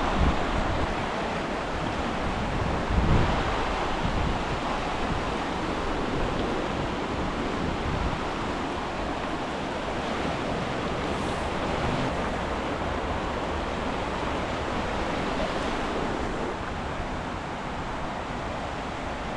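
Steady rush of a swollen river in flood, fast-moving water. Wind buffets the microphone in low gusts once or twice early in the clip.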